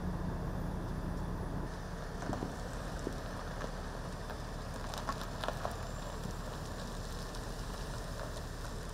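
Idling vehicle engine hum with a steady outdoor rumble. Scattered light clicks and crackles come between about two and six seconds in.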